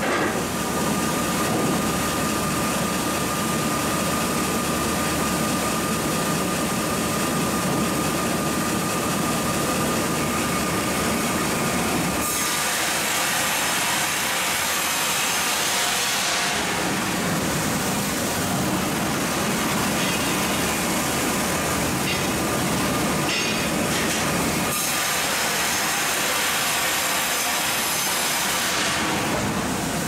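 MEBOR HTZ 1200 horizontal band sawmill running with a steady whine. About twelve seconds in, and again near the end, the blade cuts through a log with a bright, hissing saw noise.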